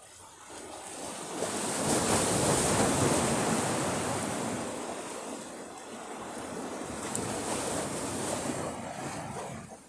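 Rough sea surging against the shore: a wave builds over about two seconds into a loud wash, then eases, and a smaller surge follows later.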